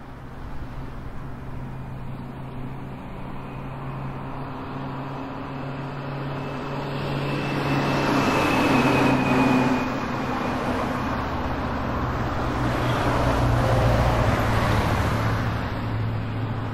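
Car driving, with a steady low engine hum under road noise that swells about a third of the way in and stays louder.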